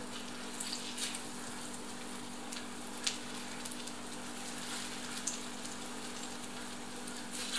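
Eggplant slices in a flour-and-egg coating frying in vegetable oil in a frying pan: a steady sizzle with scattered small pops and crackles, over a low steady hum.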